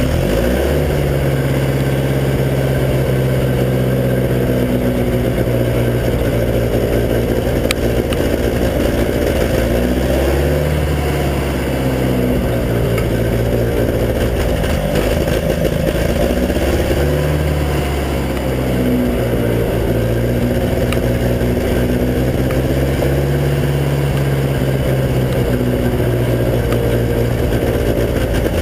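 Massey Ferguson 202 Workbull backhoe tractor's four-cylinder gasoline engine running steadily just after starting, with its oil-fouling #1 spark plug freshly cleaned. Its pitch sags briefly twice, around ten and seventeen seconds in.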